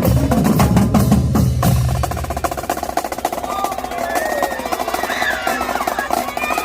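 Marching band drumline playing a cadence: bass drums and snares hit hard together, then about two seconds in the bass drums drop out and the snares and tenor drums carry on with a fast, even roll.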